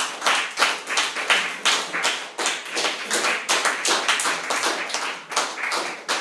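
Audience applauding, the loudest claps coming at about three a second.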